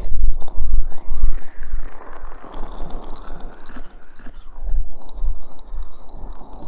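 Fingers rubbing aloe vera gel over the microphone's ears in an ASMR ear massage: wet, sticky rubbing with heavy, uneven low rumbles from the handling.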